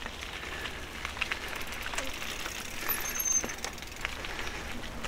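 Two mountain bikes rolling along a lane: tyre noise on the surface with scattered clicks and rattles from the bikes, and wind buffeting the microphone. A brief high squeak about three seconds in.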